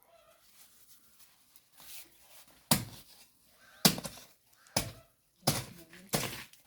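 A series of five heavy thumps, roughly a second apart, after a quiet start.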